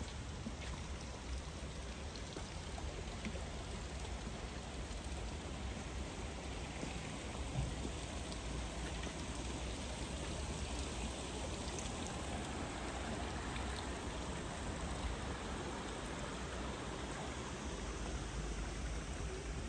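Steady rush of the Yazawa River flowing through the valley, with a low rumble underneath.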